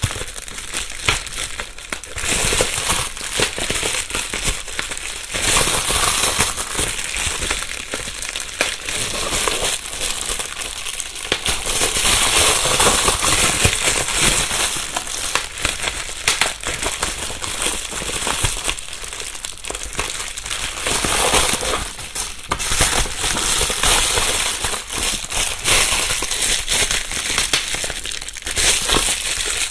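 Plastic bubble wrap being handled, with continuous crinkly rustling and scattered sharp pops as bubbles burst, recorded binaurally close to the microphones.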